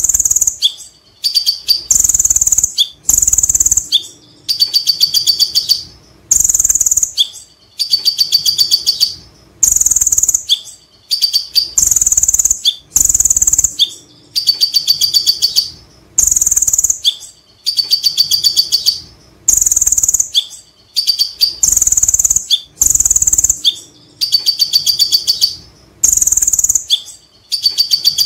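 Male Van Hasselt's sunbird (konin, kolibri ninja) singing its continuous chattering 'ngekek' song. Very fast, high trills about a second long come again and again, roughly every one and a half to two seconds, each joined by a few short lower notes.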